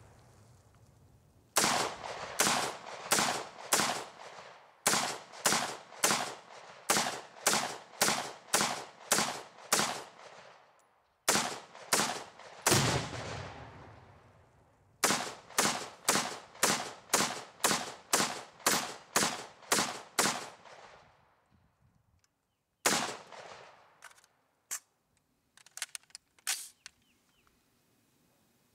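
AR-15 carbine fired semi-automatic in quick strings of about two shots a second, each shot with a short echo after it. A long string is followed by two single shots and a second long string, then a few scattered, quieter cracks near the end.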